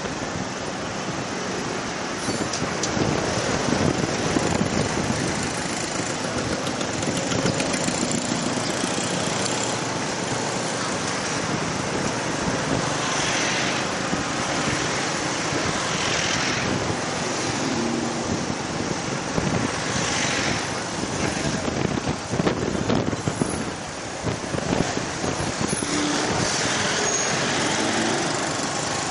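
Steady traffic noise heard from the pillion seat of a moving motorcycle taxi: the bike's own engine mixed with the scooters and cars around it.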